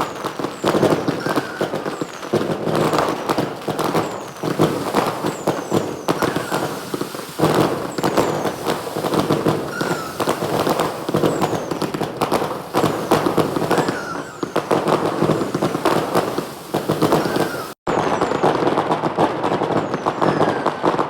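Fireworks and firecrackers going off in a dense, continuous crackle of bangs, with short whistles recurring every second or two. The barrage breaks off for an instant about eighteen seconds in, then carries on.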